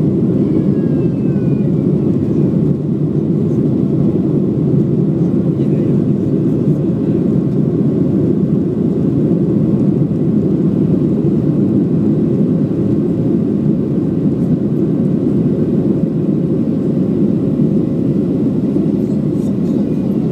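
Steady cabin noise of a Boeing 737-700 in the climb after takeoff: its CFM56-7B turbofans and the airflow make an even, low rushing sound, with a faint steady hum over it.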